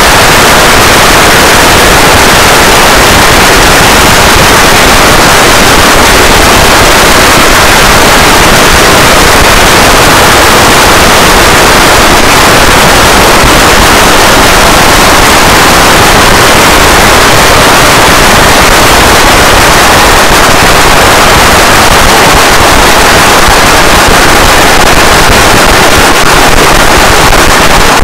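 A long string of firecrackers going off in one continuous rapid crackle, loud enough to overload the recording throughout.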